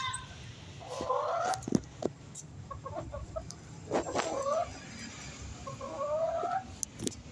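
A pet chicken clucking in three short bouts of calls: about a second in, around four seconds in, and near six seconds. A few sharp taps fall between the calls.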